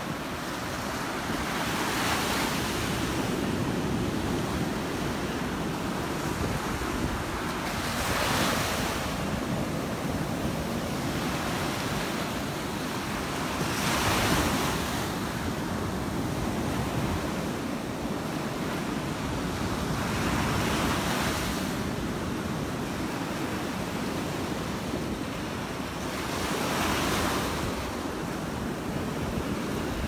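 Surf breaking on a sandy beach, a wave crashing and washing up about every six seconds, five times, over a steady rush of water. Wind buffets the microphone with a low rumble.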